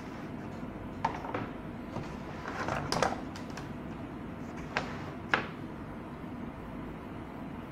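A few scattered clicks and knocks and a short rattle as a photocopier power supply circuit board is handled and turned over on the bench, over a steady low background noise.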